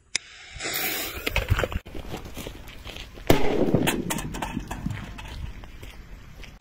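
A lighter clicks and the fuse hisses briefly, then about three seconds in a cardboard-tube firecracker set off in a metal pot goes off with a single sharp bang, followed by a fading rumble and scattered small clicks.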